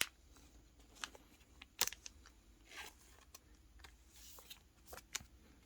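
Faint rustling and sharp clicks of trading cards and a plastic card sleeve being handled, as a card is slid into its sleeve.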